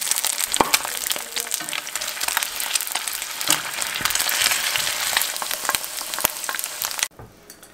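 Eggs frying in oil in a cast-iron skillet: a steady sizzle dotted with sharp pops, cutting off suddenly about seven seconds in.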